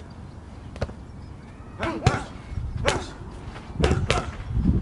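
Boxing gloves smacking leather focus mitts in a run of sharp hits about a second apart, the later ones in quick pairs, with short vocal grunts from the boxer on some strikes.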